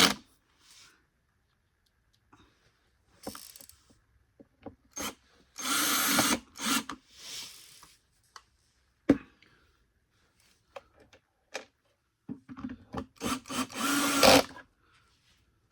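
Electric drill driving screws back into the vacuum's housing in two short runs, about six seconds in and again near the end, with small clicks and handling of parts between.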